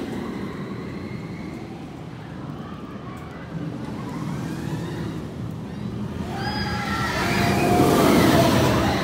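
Rocky Mountain Construction hybrid roller coaster train rumbling along its track through the steel support structure, growing louder as it passes close by about eight seconds in. Riders are screaming as it goes by.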